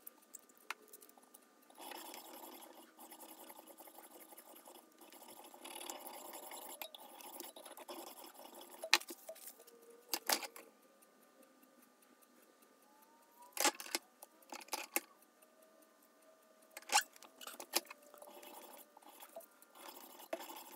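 Faint rubbing of an abrasive being worked by hand along a steel screwdriver shank held in a vise, in stretches of a few seconds, broken by a few sharp clicks and taps.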